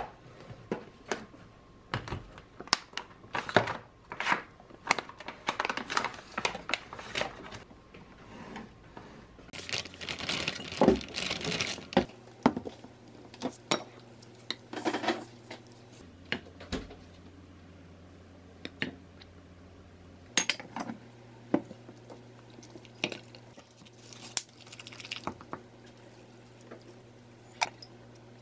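Plastic food-storage containers and lids clattering and knocking as they are handled, with dense clicks for the first dozen seconds. In the second half, sparser taps and scrapes of a wooden spoon stirring thick chili-paste sauce in a glass measuring cup.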